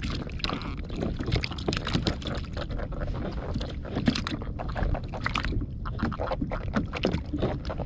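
Small waves lapping against a plastic sit-on-top kayak's hull: many quick, irregular splashes and knocks over a low rumble.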